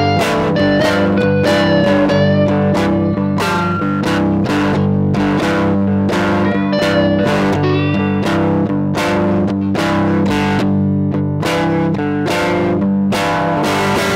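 Blues guitar music: chords strummed in a steady rhythm of about two strokes a second, with a melody of held, bending notes over them.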